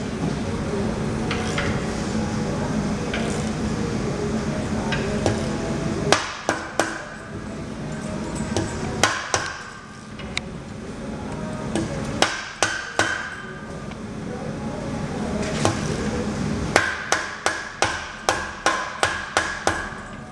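Soft-faced hammer tapping on a bush press tool to settle and start a rear trailing arm bush into the arm. After a steady background hum, the taps begin about six seconds in as single taps and small groups, then come as a quick run of about three a second near the end, each with a short metallic ring.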